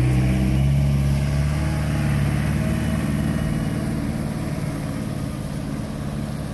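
Vehicle engines running steadily at low revs, a low hum that rises slightly in pitch in the first second.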